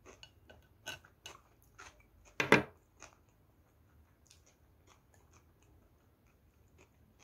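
Mouth sounds of chewing with soft clicks, then a sharp double clack about two and a half seconds in as plastic training chopsticks are set down on the table; faint ticks after.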